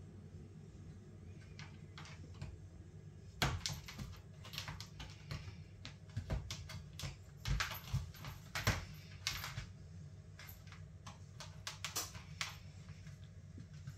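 Irregular clicks, taps and knocks on a plastic laundry basket as a cat scrabbles about inside it, tugging at a fluffy toy through the basket's holes. The knocking begins a few seconds in and comes in bursts before dying away near the end.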